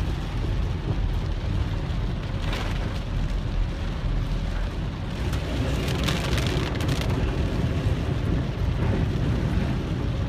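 Heavy rain on a moving car, heard from inside the cabin, over the low rumble of the car and its tyres on the flooded road. A few brief louder swishes come about two and a half and six seconds in.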